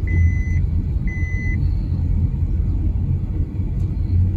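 Car driving, heard from inside the cabin: a steady low road and engine rumble. An electronic warning chime beeps twice near the start, about a second apart.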